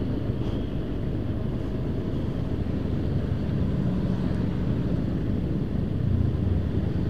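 Motorcycle ridden at a steady, moderate speed on a town street: a steady low rumble of the engine, mixed with road and wind noise on the microphone.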